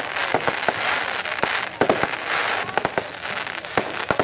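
Fireworks going off: many sharp bangs and cracks at irregular intervals over a continuous crackling hiss.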